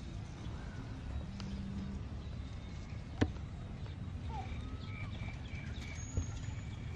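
Outdoor ambience: a steady low rumble with a few faint, short chirping calls, and a single sharp click about three seconds in.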